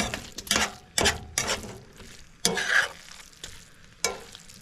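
Metal utensil scraping and stirring rice in a frying pan on a camp stove: about half a dozen irregular scrapes against the pan, the longest about two and a half seconds in, with a faint sizzle of frying between them.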